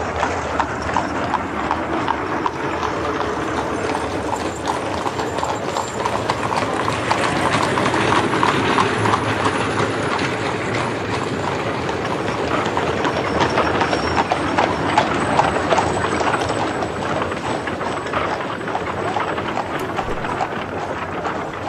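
Horse-drawn street traffic: many horses' hooves clip-clopping on the street over the steady rumble of carriage wheels, a little louder in the middle as vehicles pass close.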